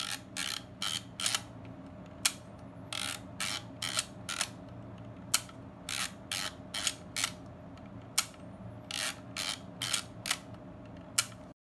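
Kodak KB-10's plastic thumbwheel film advance ratcheting in short bursts of winding strokes, each wind followed by a single sharp click of the shutter firing. The wind-and-fire cycle comes four times, as frames are shot off toward the end of the roll.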